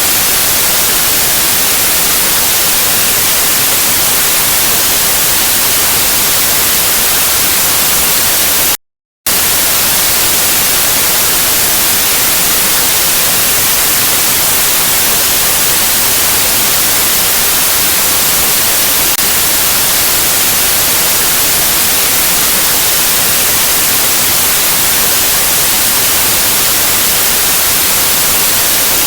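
Steady static hiss, white noise weighted toward the high end, cutting out to silence for a fraction of a second about nine seconds in before resuming unchanged.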